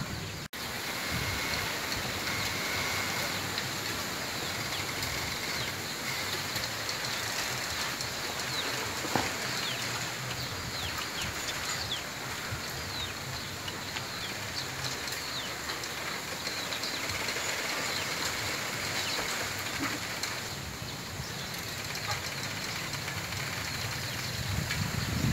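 Wind rustling through the leaves of a bamboo grove, with scattered light clicks and cracks from the swaying stems and one sharper knock about nine seconds in.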